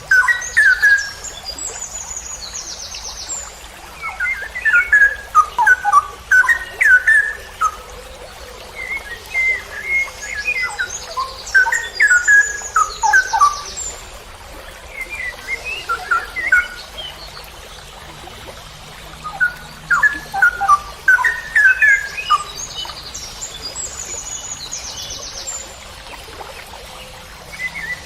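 Straw-headed bulbul (cucak rowo) singing loud, rich bubbling whistled phrases in bursts a few seconds long with short pauses between them. A thin, high, buzzy trill comes in three times between the phrases.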